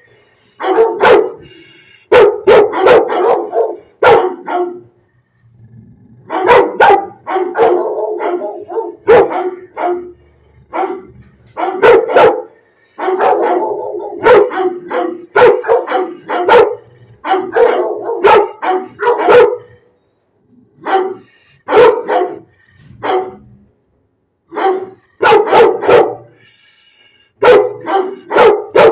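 Dog barking repeatedly, in quick runs of sharp barks broken by a few brief pauses.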